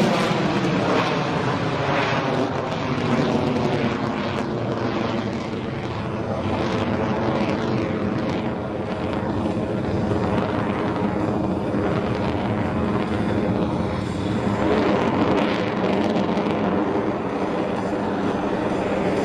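Jet noise from an F-22 Raptor's twin Pratt & Whitney F119 afterburning turbofans as the fighter manoeuvres overhead: a loud, steady rush, with a tone that sweeps downward in the first second.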